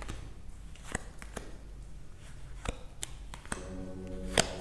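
Tarot cards being handled and dealt from the deck onto a cloth-covered table: a few scattered soft clicks and taps, with a sharper snap near the end. Soft background music comes in about three and a half seconds in.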